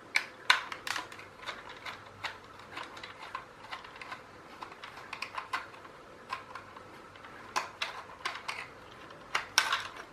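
Irregular light clicks and knocks of a toy train set's plastic parts being picked up and handled, with a quick cluster of clicks near the end.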